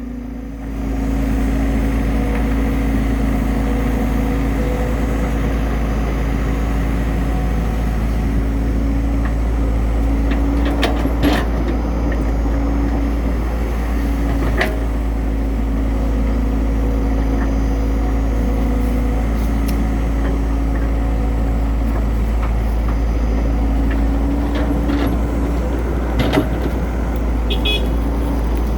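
Hydraulic excavator's diesel engine running steadily while digging, with a steady low drone and a few sharp knocks scattered through it.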